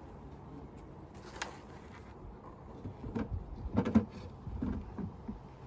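Wooden beehive parts knocking and scraping as the entrance reducer is worked loose and shifted. A single click comes about a second in, then a run of knocks with a loud one near the middle.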